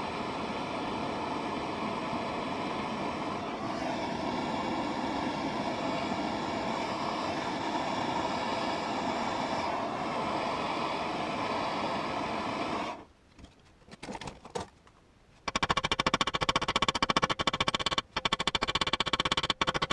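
Plumber's gas torch burning with a steady hiss as it heats the end of a steel bar to anneal it; the flame cuts off about 13 seconds in. After a short pause, rapid hammer blows on the steel held in a vise start near the end.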